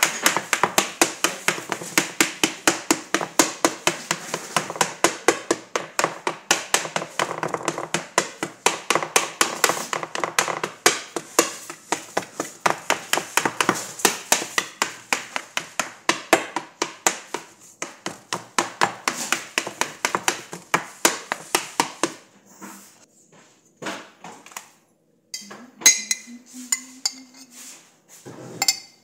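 A metal fork jabbing repeatedly into pizza dough, its tines tapping the metal pan beneath in quick taps several a second; the tapping stops about three quarters of the way through. Near the end come a few ringing clinks of a spoon against the jar.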